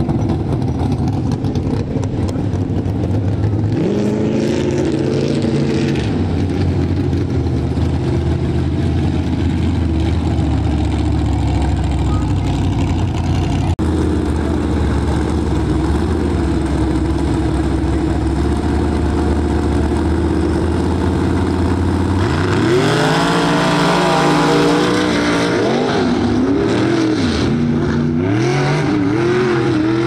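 Tuff-truck engine running hard and revving over and over. It climbs briefly about four seconds in, climbs steeply and stays high a little over twenty seconds in, then swings up and down several times near the end.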